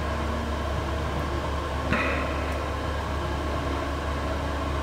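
A spatula stirring hot raspberry syrup in a stainless-steel saucepan, with a short scrape about two seconds in, over a steady low mechanical hum.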